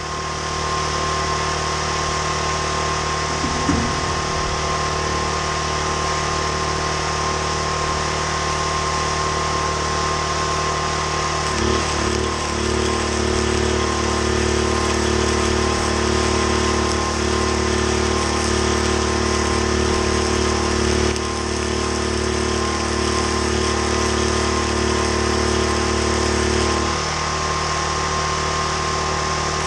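Arc welding on a steel frame: a steady hiss of the arc over a generator running under load. The generator's note shifts about twelve seconds in and again near the end.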